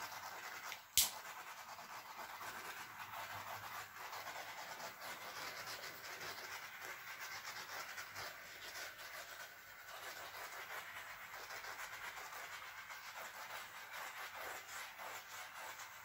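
Small handheld butane torch hissing steadily as its flame is swept over wet white acrylic paint to pop the air bubbles in the base coat, with one sharp click about a second in.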